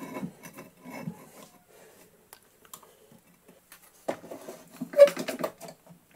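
Faint handling noises, then a quick run of sharp clicks about four seconds in as an Irwin Quick-Grip bar clamp is squeezed and ratcheted tight to clamp the granite plate down.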